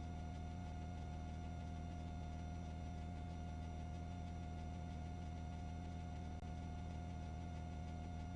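Steady low hum and hiss with a faint steady high tone, unchanging throughout, with no distinct events.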